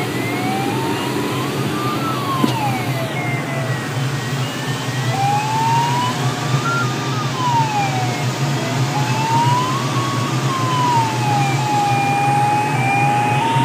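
A glider's audio variometer sounds a tone that slides slowly up and down in pitch, several rises and falls, steadier near the end; its pitch follows the sailplane's rate of climb or sink. Under it is the steady rush of air over the cockpit of the Grob sailplane in flight.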